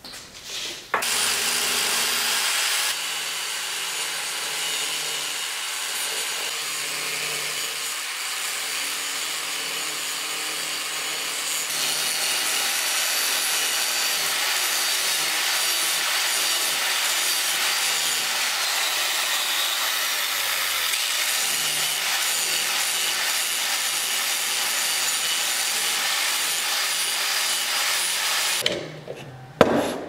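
Electric angle grinder running with an abrasive disc, grinding on a steel motorcycle clutch basket. It starts about a second in, runs steadily, and stops near the end.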